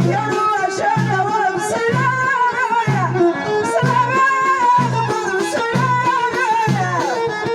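Amazigh (Berber) song playing: a wavering melody line over a steady low beat, about one beat a second.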